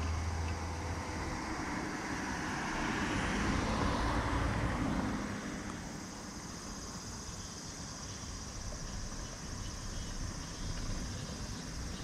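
A vehicle passing: a rushing noise builds for a few seconds and then fades away about halfway through. After that comes quieter, steady street background noise.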